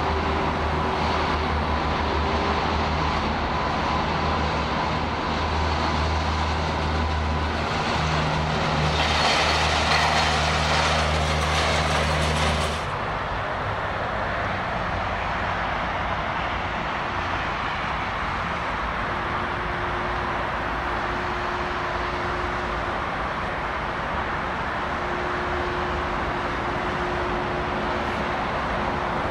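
Jet engines of a McDonnell Douglas MD-11 freighter running at taxi power: a steady hum and whine over a broad rush. It swells for a few seconds, then drops abruptly to a softer, steady jet noise about halfway through.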